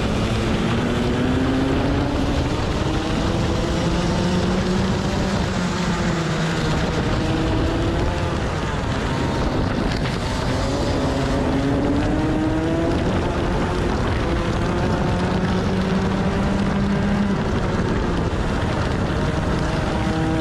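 Rotax 125cc two-stroke kart engine at racing speed. Its pitch climbs as it accelerates out of a corner, holds, then drops as it slows for the next, repeating several times, with wind noise over it.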